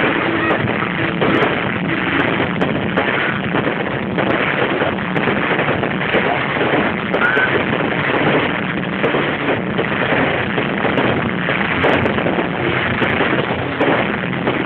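Fireworks display going off in a dense, unbroken barrage: many bangs and crackles in quick succession.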